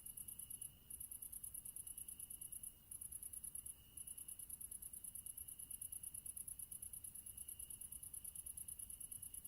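Crickets chirping: a rapid, high-pitched pulsing trill, broken by three short pauses in the first four seconds, over a fainter steady lower tone.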